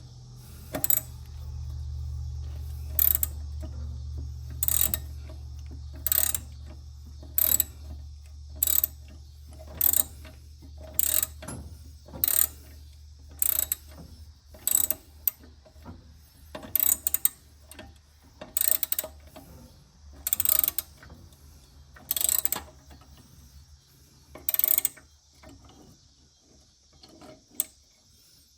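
SK hand socket ratchet tightening a nut: the pawl clicks sharply about once a second, stroke after stroke, stopping a few seconds before the end. A steady low hum runs underneath and fades out at about the same time.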